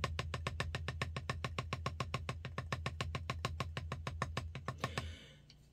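A drumstick tapping a rubber drum practice pad in a fast, even stream of strokes, about eight a second, which stops about five seconds in. The stick is held loosely in a French grip and driven by the fingers pulling it up for each bounce, with the wrist held still.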